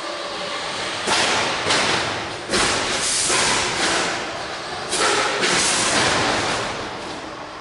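Combat robots fighting in an arena in a large hall: a run of sudden loud bursts of noise and thuds, several separate surges, each lasting from a fraction of a second to about a second.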